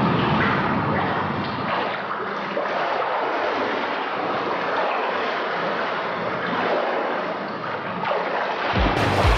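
Muffled, steady rush and churn of pool water as heard through a microphone under the surface. Near the end it cuts to background music.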